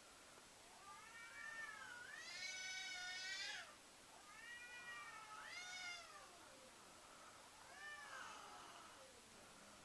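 Cats caterwauling: three long, wavering yowls, the first the longest and loudest, heard faintly.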